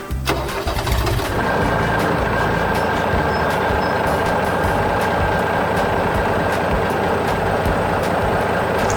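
Heavy truck engine running steadily, a cartoon sound effect, settling into a constant rumble and hiss about a second in.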